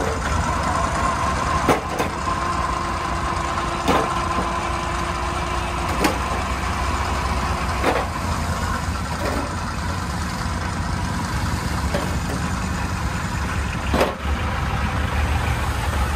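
Hoa Mai light dump truck's engine running steadily while its hydraulic hoist raises the bed to tip a load of sand. A thin steady whine fades out about halfway through, and sharp clicks come about every two seconds.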